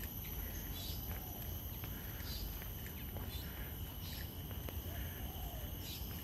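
Birds chirping in short calls about once a second, over a steady high-pitched whine and a low background rumble.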